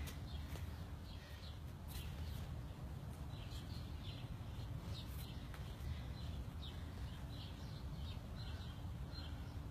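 Small birds chirping in short, repeated high notes over a steady low outdoor rumble.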